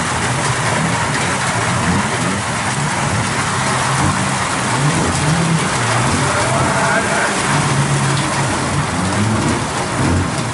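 Junior sedan's small four-cylinder engine running and revving up and down as the car drives slowly on a wet dirt track, over a steady hiss of rain.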